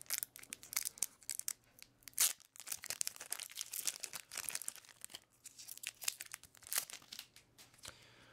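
Magic: The Gathering booster pack's foil wrapper crinkling and being torn open by hand: a run of irregular sharp crackles, with the loudest about two seconds in.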